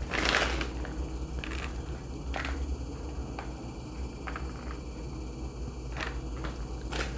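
Brief, soft rustling and brushing as a hand scatters shredded cheese over macaroni in a disposable aluminium pan. The first swish is the loudest and several fainter ones follow, over a low steady hum.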